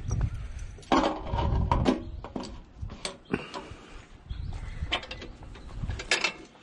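Pressure-washer hose reel turning as hose is pulled off it, with irregular mechanical clicks, rattles and creaks.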